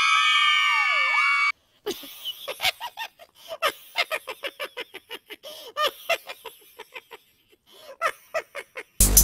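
Edited-in comedy sound effects: a shrill, honking cry that cuts off abruptly about a second and a half in, then a long run of short cackling squawks, several a second.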